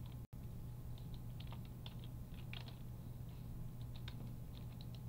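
Light, irregular clicks of a computer keyboard and mouse being worked, over a steady low hum. The sound drops out for an instant just after the start.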